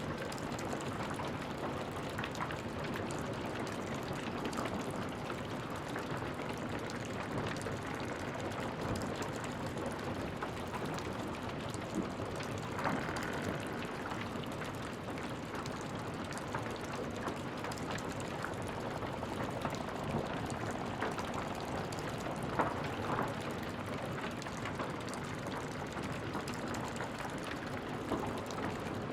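Aftermath of a fire: a steady hiss of smouldering debris with scattered small crackles and ticks, and a few louder snaps.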